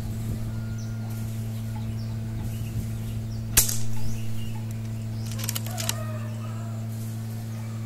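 A single shot from an FX Impact PCP air rifle about three and a half seconds in: one sharp crack. A quick run of clicks follows about two seconds later, over a steady low hum.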